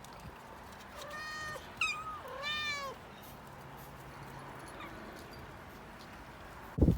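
Domestic cat meowing three times: a held meow, a short one, then a longer meow that rises and falls in pitch. Loud thumps start near the end.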